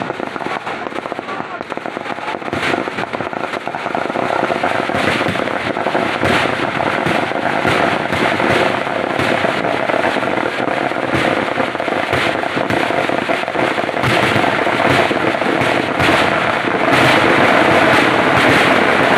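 Firecrackers going off in a dense, continuous barrage of rapid cracks and pops. The barrage grows louder about four seconds in and again near the end.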